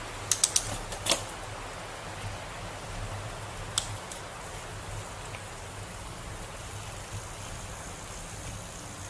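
Bicycles rolling along a paved trail: a steady rushing noise of tyres and wind. Three quick sharp clicks come in the first second, another just after a second in, and one more near four seconds.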